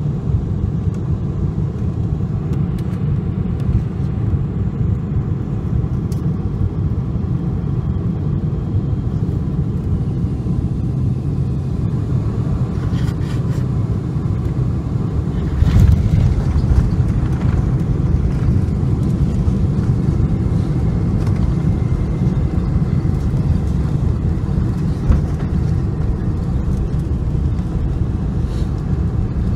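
Steady low rumble inside the cabin of a Boeing 747-400 airliner, swelling louder for a moment a little past halfway.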